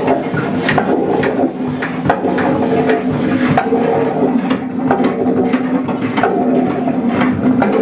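Improvised noise music: a steady, droning electronic hum with irregular knocks and clicks from struck objects over it.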